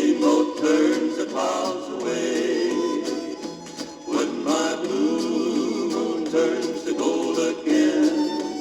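Song recording: several male voices singing together in harmony, in phrases that swell and break every few seconds.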